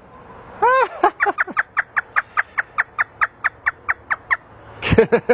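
Talking parrot imitating a hysterical laugh: a rapid run of short 'ha' notes, about four or five a second, growing fainter. A few louder, lower notes come near the end.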